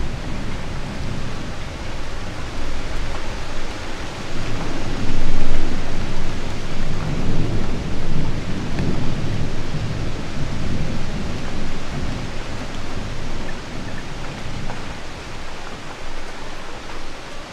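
Steady rainfall with a long rumble of thunder that swells about five seconds in and slowly dies away toward the end.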